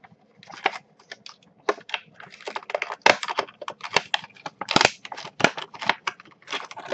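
An action figure's cardboard-and-plastic blister packaging being torn and crinkled open by hand: a rapid, irregular run of crackles and rips.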